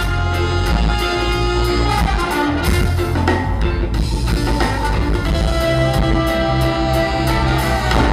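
Live ska band playing, with a horn section of trombone, saxophones and trumpet over drums, bass, guitar and keyboards.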